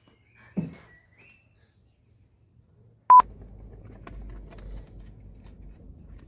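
A single short, loud electronic beep at one steady pitch, about three seconds in, like an edited-in bleep tone. Before it there are a faint thin whistle-like tone and a soft thump. After it a steady low rumble with scattered small clicks.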